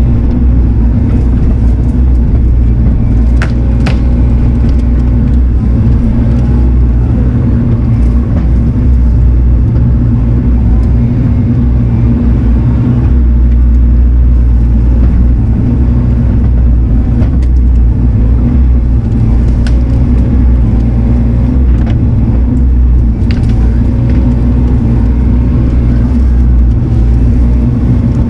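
Diesel engine of a compact construction machine running steadily under load, its pitch holding even, with a few sharp clanks mixed in.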